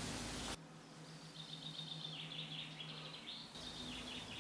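A steady hiss cuts off suddenly about half a second in. Then small birds twitter faintly in quick, high chirps and trills, over a low steady hum.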